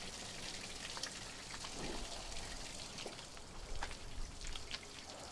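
Water pouring and splattering out of the open suction inlet of a Godiva centrifugal fire pump onto the ground, a steady splashing with scattered drips. The tank-to-pump lever was left open, so the appliance's water tank is draining out through the pump.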